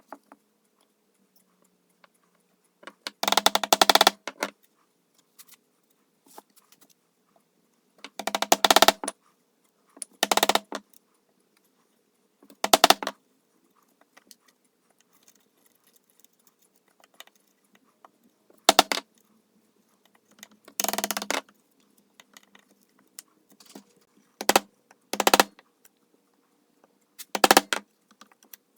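A tool cutting or shaping wood in about nine short, rough bursts, each a second or less, with pauses between them, over a faint steady hum.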